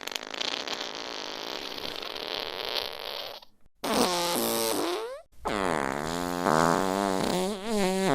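Three fart sound effects one after another. The first is a long raspy, sputtering one lasting about three and a half seconds. After a short break comes a shorter pitched one whose pitch bends down and back up, then a longer pitched one with a wavering pitch.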